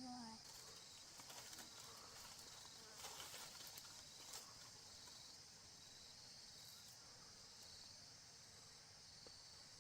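Faint, steady high-pitched insect chorus, with a few faint ticks and taps about three and four seconds in.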